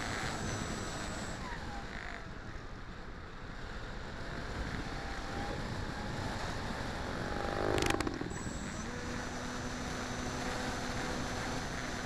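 RC model plane's engine running with wind rushing over its onboard camera's microphone during a low pass and climb, the engine note rising to a brief loud peak about eight seconds in, then settling into a steady drone.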